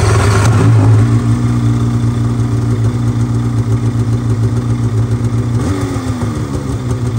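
Snowmobile two-stroke engine with a Straightline Performance lightweight aftermarket muffler, just started and running at a steady fast idle. There is a small blip about six seconds in, then the idle eases lower. The muffler has a different tone but is only 2, maybe 3 decibels louder than stock.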